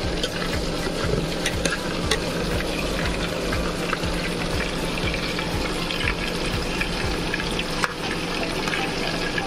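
Mutton keema tikkis frying in hot mustard oil in a nonstick pan: a steady sizzle with scattered sharp pops and crackles, over a faint steady low hum.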